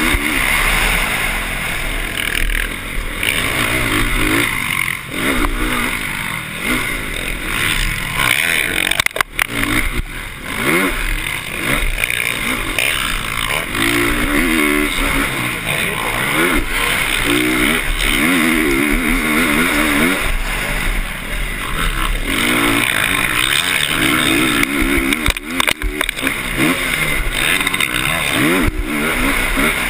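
Motocross dirt bike engine heard close up from the rider's helmet, revving up and falling away again and again as the bike accelerates, shifts and backs off over the track, under a steady rushing noise. The sound drops sharply for a moment about nine seconds in and again near the end.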